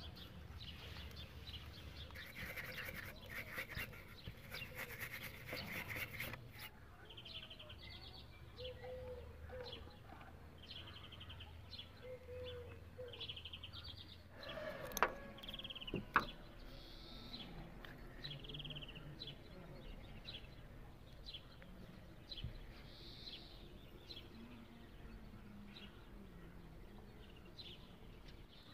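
Small birds chirping repeatedly, with a rapid buzzing trill for a few seconds near the start. Two sharp clicks just past the middle are the loudest sounds.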